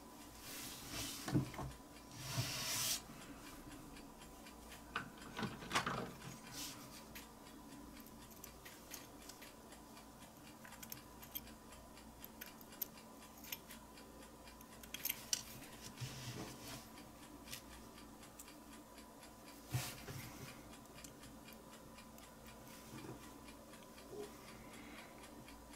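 Faint small clicks and scrapes of fingers and a thin wire pick working the small metal parts and O-ring of a butane lighter's fill valve, with a few brief louder rustles of handling, over a faint steady hum.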